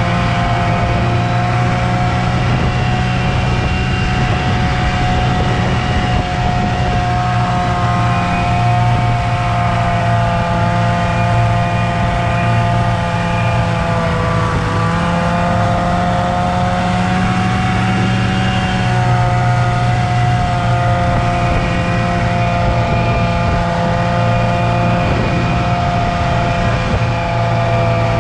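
Snowmobile engine running steadily at cruising speed, its whine dipping slightly about halfway through and climbing back a few seconds later.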